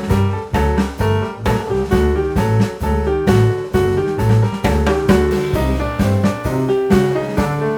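Background music: an upbeat piano-led jazzy tune with bass and drums keeping a steady beat.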